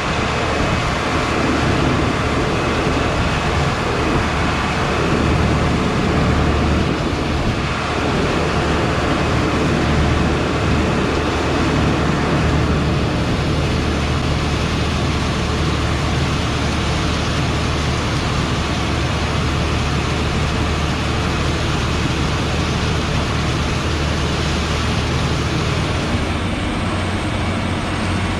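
Heavy harvest machinery running steadily: a continuous engine drone under a dense mechanical rumble. The upper part of the noise thins slightly near the end.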